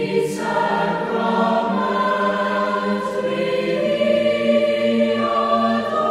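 A choir singing sacred music in long, held chords, the harmony shifting every second or two.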